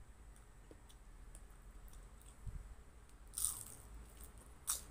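Biting into a crisp deep-fried dynamite lumpia, a spring roll wrapped around a green chili pepper: two sharp crunches of the fried wrapper, one about three and a half seconds in and one near the end, with faint small clicks before them.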